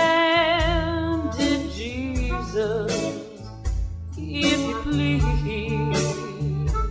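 A song playing: a singer holds a long note with vibrato at the start, then sings on over guitar and a regular beat.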